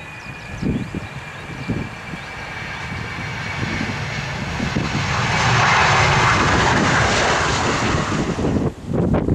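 Jet airliner passing close, its engine noise swelling to a loud peak over several seconds with a thin whine slowly falling in pitch. Wind buffets the microphone at first, and the sound breaks off suddenly near the end.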